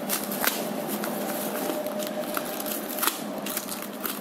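Snap-off utility knife cutting open a paper padded mailer: steady paper scraping and rustling, with a few sharp clicks and crackles, the clearest near the start and about three seconds in.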